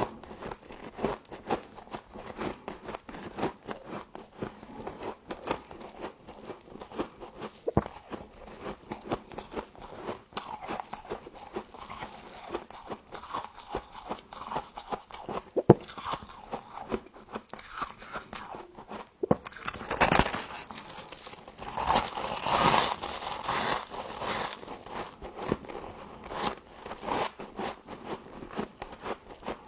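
Close-up crunching and chewing of frost, a dense run of rapid crackling bites, louder and fuller about two-thirds of the way through.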